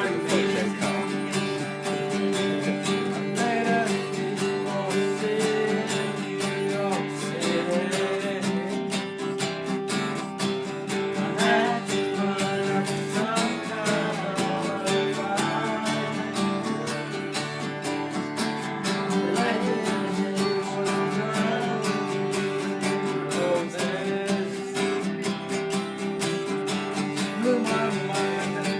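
Country music played on acoustic guitar, strummed steadily, with a melody line sliding in pitch over it.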